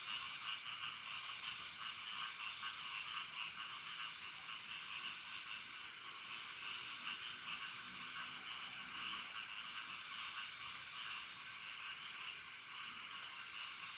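Night chorus of frogs calling continuously, a dense fast pulsing with no single call standing out.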